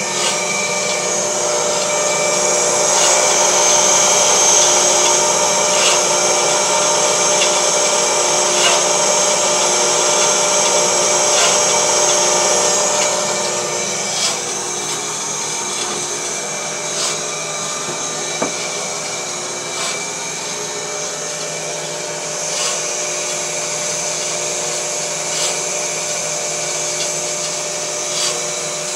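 Homemade steel bandsaw running without a cut: its electric motor and belt-driven wheels and band give a steady whirring hum with a light tick about every three seconds. It is louder for the first dozen seconds, then a little quieter.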